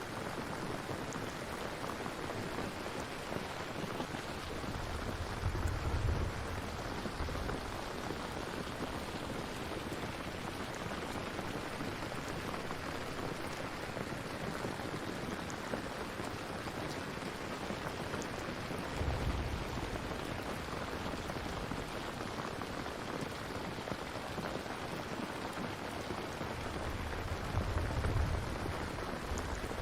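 Steady rain falling, an even hiss, with three low rumbles of thunder: one about five seconds in, one around the middle, and one near the end.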